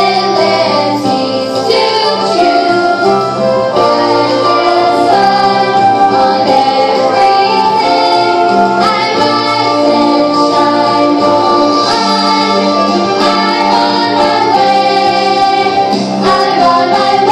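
Children's choir singing a song in unison and harmony over instrumental accompaniment, with steady, held notes.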